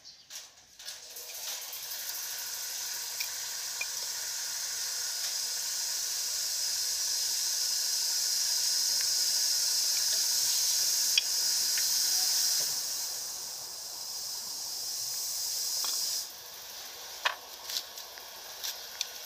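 Aerosol spray can hissing in one long steady spray onto a drum-brake backing plate, dipping briefly and then cutting off sharply near the end.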